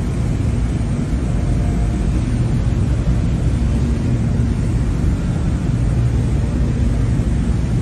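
Aircraft engines running with a steady low rumble and a faint hum.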